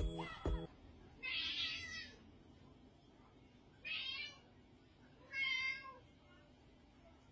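A cat meowing three times, short calls spaced a couple of seconds apart, after two brief knocks at the start.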